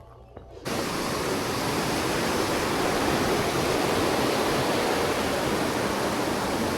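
Rushing mountain water, a loud, steady rush that starts abruptly just under a second in. Before it, faint quiet outdoor air with a few small bird chirps.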